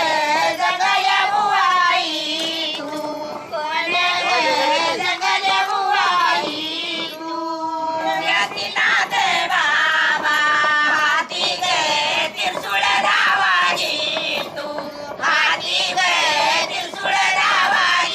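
An elderly woman singing in a high voice, with the pitch bending and wavering through long sung phrases broken by short pauses.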